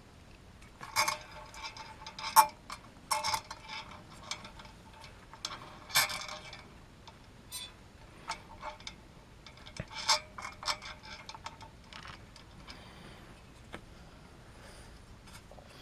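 Small metal screws and CPU-heatsink mounting hardware clinking and rattling irregularly as the screws are fitted by hand, with brief ringing metallic clinks. The loudest come about one, two and a half, six and ten seconds in, and they thin out near the end.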